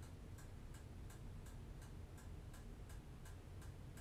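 Faint, even ticking, about three ticks a second, over a low steady room hum.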